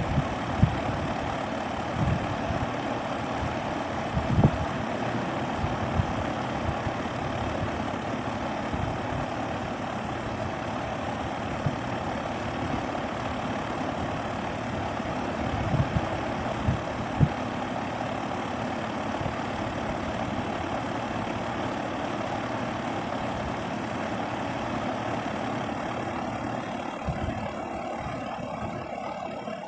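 SmartComfort heat pump running with a steady mechanical noise, broken by a few short low thumps. The noise tapers off near the end.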